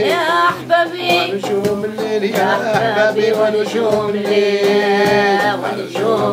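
A voice singing a wavering melody over instrumental music, with a steady held note underneath.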